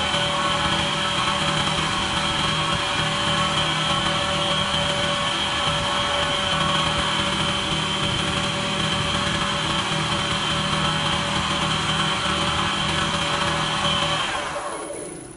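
Wood lathe running steadily at speed with a constant high whine while a pen blank is polished with abrasive paste on a cloth. The lathe is switched off about a second before the end and spins down.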